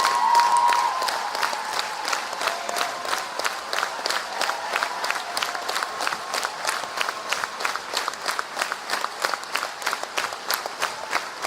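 Large concert audience applauding, dense clapping throughout, with cheering from the crowd near the start and near the end.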